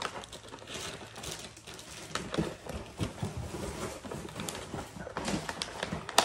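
Plastic snack packets rustling and crinkling, with scattered light knocks and taps as snacks are handled and packed into a cardboard box, and a sharp click near the end.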